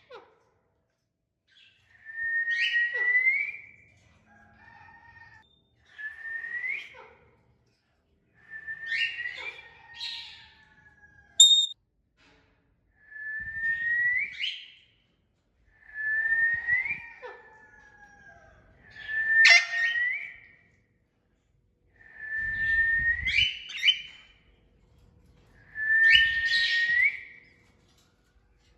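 Pet parrot whistling about eight times, a few seconds apart, each whistle a held note that slides upward at the end, with one short sharp chirp in between.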